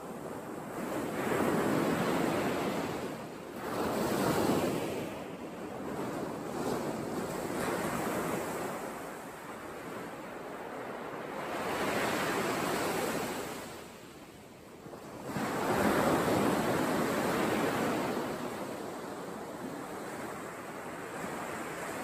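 Beach surf and wind: a steady rush of noise that swells and eases every few seconds as waves wash onto the sand, with some wind on the microphone.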